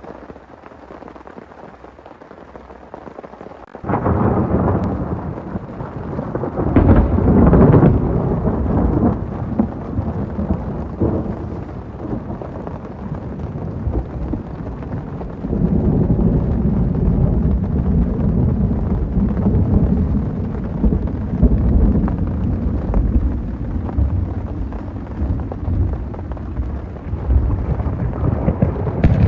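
Heavy rain with thunder: a loud thunderclap breaks in suddenly about four seconds in and rumbles on, swelling again about halfway through over the steady rain.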